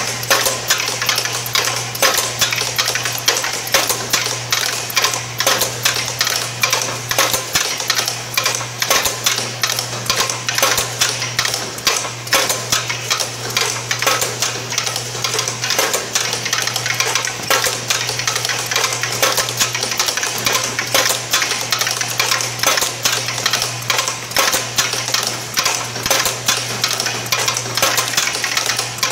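Automated packet-making machine line running: rapid, dense mechanical clicking and rattling over a steady low hum.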